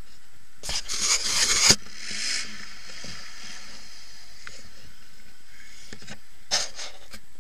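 Faint engine of a quad bike (ATV) riding away along a muddy track, rising and falling in pitch. Two bursts of scraping or rustling noise close to the microphone, the louder about a second in, a shorter one near the end.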